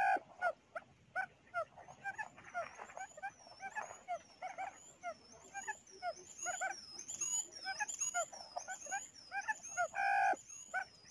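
Birds calling: a fast, uneven run of short repeated chirps, with a higher rising-and-falling call repeated from about five seconds in. Two louder, fuller calls stand out, one at the start and one about ten seconds in.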